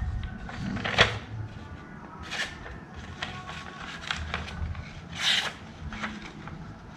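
A sharpened skinning knife slicing through a sheet of paper, with paper rustling: a handful of short, crisp swishes, the sharpest about a second in and a longer slice just past the five-second mark. It is a paper-cutting test of an edge just finished on 800-grit sandpaper, which cuts cleanly, a sign the edge is very sharp.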